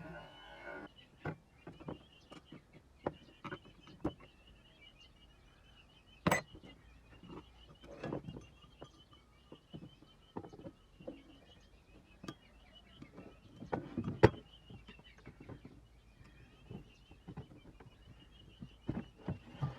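Scattered light clicks and knocks of tools and small parts being handled during work on an old air pump, irregular, with two sharper knocks about six and fourteen seconds in, over a faint warbling high tone.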